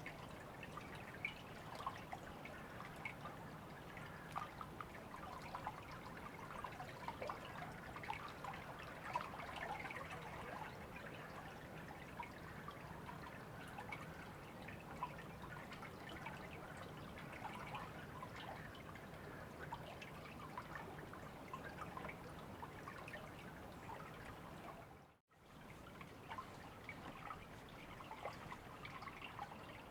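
River water trickling and babbling, a steady wash full of small splashy droplet sounds. Near the end it drops out to silence for a split second, then comes back.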